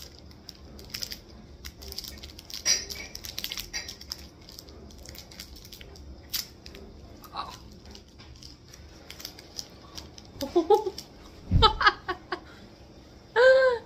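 Crinkling and tearing of a strawberry Kit Kat's plastic wrapper, a run of sharp crackles over the first several seconds. Near the end come a dull knock and a few short hummed voice sounds.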